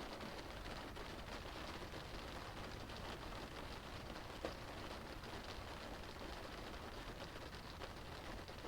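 Rain falling on a car's roof and windows, heard from inside the cabin: a steady, muffled patter of drops, with one sharper drop tick about four and a half seconds in.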